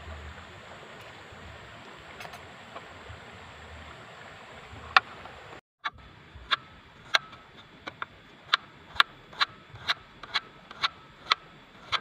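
Kitchen knife slicing peeled potatoes on a wooden cutting board: a sharp knock about twice a second as the blade goes through each slice onto the board, starting about halfway in.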